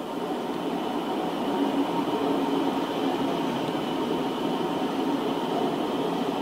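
Freight train rolling past behind an electric locomotive, its covered wagons running by on the rails: a steady rumble of wheels on track that swells over the first couple of seconds, with a faint high whine over it.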